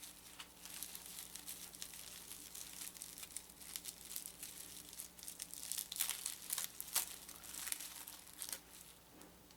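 Packaging being handled and unwrapped, crinkling with many scattered sharp crackles that are densest about six to seven seconds in, while a boxed miniature is unpacked.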